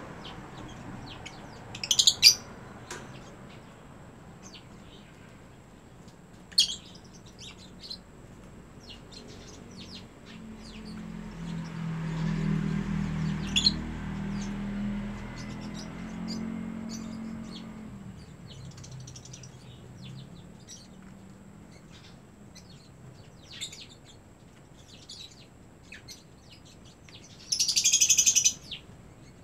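Pet lovebirds chirping with short, sharp calls scattered throughout, a loud call about two seconds in, and a loud burst of rapid chattering near the end. A low hum swells and fades in the middle.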